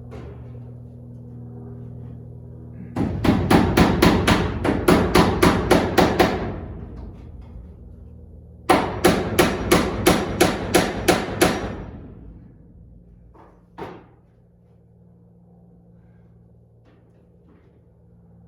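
A hammer striking nails in two quick runs of about a dozen and nine blows, roughly four blows a second, then one lighter knock.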